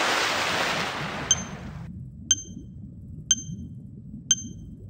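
A whooshing transition sound effect fading out over about two seconds, then a countdown timer sounding short high pings once a second, four times, over a faint low underwater water ambience.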